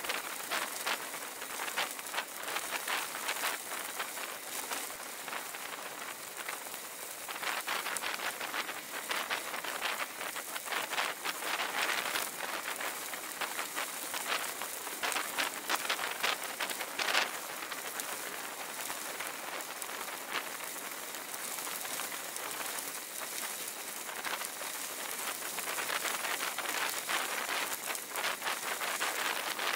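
Bicycle tyres rolling over a loose gravel road, a dense steady crackle of stones with occasional louder pops.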